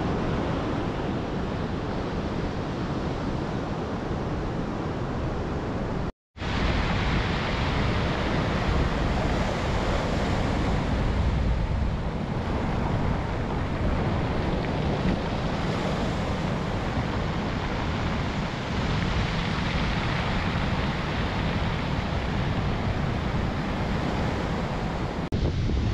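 Ocean surf rushing steadily with wind buffeting the microphone, and a brief drop-out about six seconds in.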